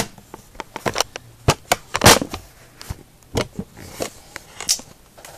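Handling noise from a phone camera being moved and repositioned: a string of irregular sharp clicks and knocks with some rustling, the loudest about two seconds in.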